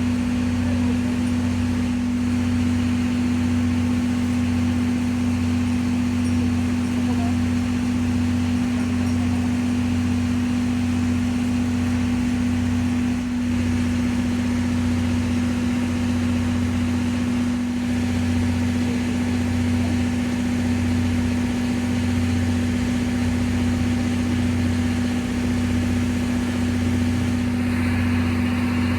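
An engine idling steadily: a constant low hum with a slow, regular throb underneath.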